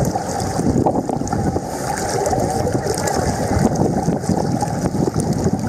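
Choppy lake water sloshing and lapping close to the microphone, with wind buffeting the microphone.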